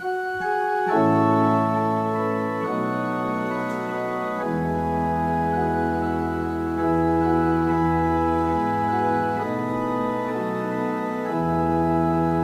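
Church organ playing the introduction to a hymn: sustained chords that change every second or two, with a low bass line that comes in a few seconds in.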